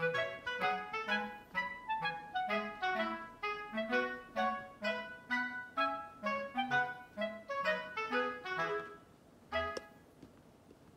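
Background music: a light, quick melody of short notes over a simple bass line, fading out about nine seconds in, with one last note shortly after.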